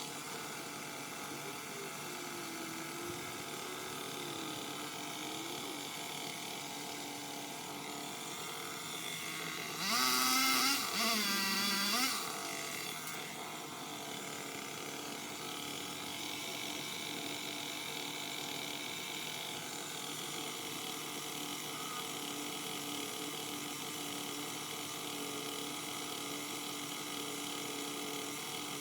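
A small motor whining in two short bursts about ten seconds in, its pitch rising and dipping, over a steady background hiss.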